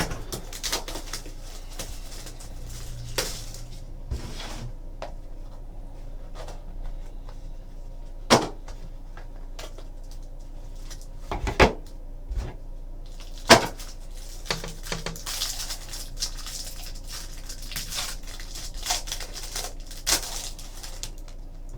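A trading-card box and its cards handled on a table while being opened: scattered clicks, taps and knocks, a few sharper ones, with rustling in the second half.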